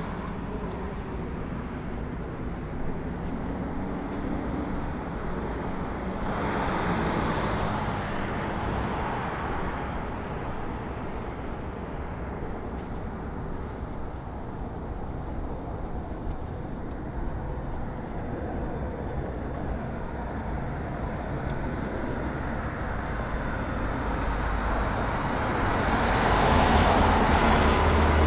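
City street traffic noise: a steady hum of traffic, with one vehicle passing about seven seconds in and a louder one with a deep rumble passing near the end.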